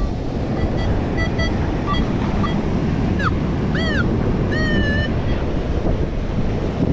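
Wind buffeting the microphone over the wash of water along a shoreline. Short high beeps and a few rising-and-falling chirps sound faintly over it.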